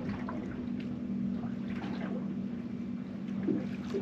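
Small fishing boat's engine idling with a steady hum, with water splashing lightly against the hull.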